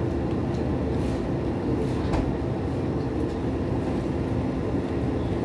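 Steady low hum and rumble of background noise, with a few faint clicks.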